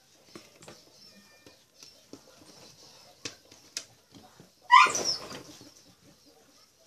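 Small clicks and taps of hands working with parts and a glue applicator on a workbench, with two sharp clicks a little after three seconds. About five seconds in there is one loud, short sound that rises in pitch, the loudest thing here.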